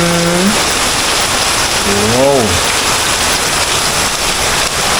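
Heavy hurricane rain pouring down steadily in a loud, even hiss, picking up again. A man's voice says "wow" about two seconds in.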